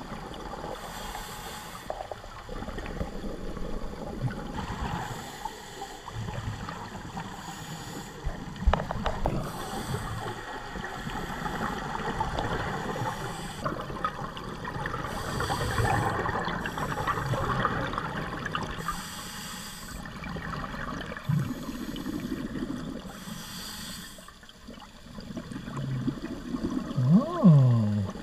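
Scuba regulator breathing heard underwater: a hiss with each inhale every few seconds and rumbling exhaust bubbles in between. There is loud gurgling bubbling near the end.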